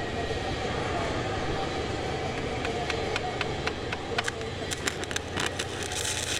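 Stick-welding arc on aluminium plate, struck for tack welds: a run of sharp crackles from about halfway, growing denser, ending in a short hissing burst near the end, over a steady background hum.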